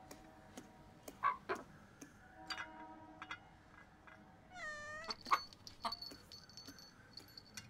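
Faint, scattered clicks of a rooster pecking food from a metal pet bowl on a tile floor, with a short falling meow from a cat about four and a half seconds in.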